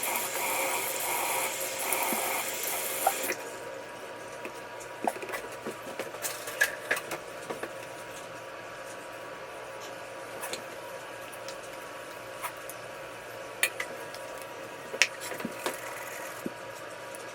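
Tap water running into a bathroom sink, shut off about three seconds in, followed by scattered drips, small splashes and clicks as a face is washed.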